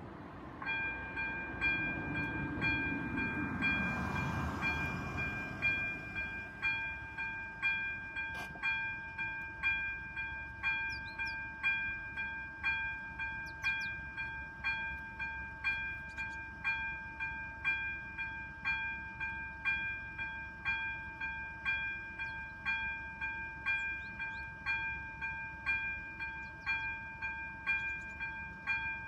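Level-crossing warning bell ringing: an electronic bell tone struck about once a second, starting within the first second as the crossing's red lights begin flashing. A vehicle's rumble swells and fades during the first few seconds.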